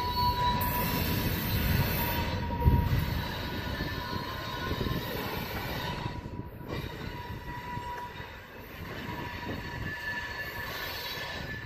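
Freight cars rolling slowly away around a curve, their wheels squealing against the rail in a thin steady high tone over a low rumble, with one sharp knock about three seconds in. The sound slowly fades as the cars move off.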